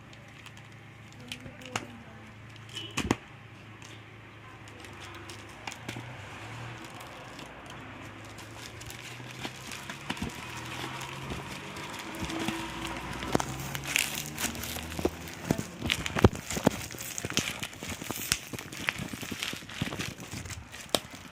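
Packaging being opened by hand: plastic wrapping crinkling and tearing, with scattered sharp clicks and taps. It gets busier and louder about halfway through.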